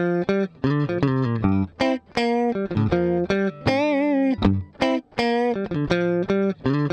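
G&L ASAT Special Telecaster with George Fullerton pickups, recorded direct through a BBE Bench Press vintage compressor pedal set with every knob at 12 o'clock: a run of picked single notes, very even in volume, with one note held with vibrato about four seconds in. The compression sounds very transparent.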